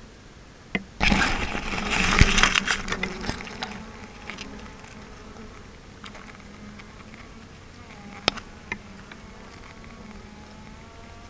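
Swarm of honey bees buzzing as a steady low hum, with single bees droning past near the end. About a second in there are a couple of seconds of loud rustling and crackling as the bee-laden tree limbs are shaken into the hive box, and a few sharp clicks and knocks follow.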